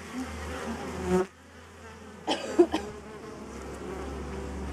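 Bees buzzing busily around the microphone, with a brief louder burst of sound about two and a half seconds in.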